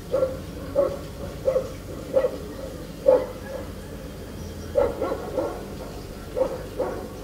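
A dog barking repeatedly, about ten short barks at uneven intervals, some in quick pairs, over a steady low background hum.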